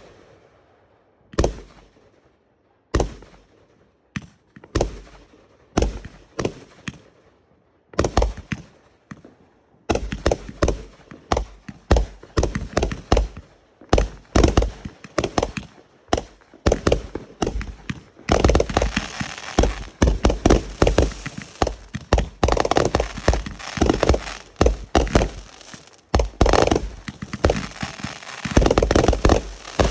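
Fireworks going off. Single sharp bangs come about every second and a half at first and grow denser from about ten seconds in. From about eighteen seconds there is a rapid volley of bangs over continuous crackling.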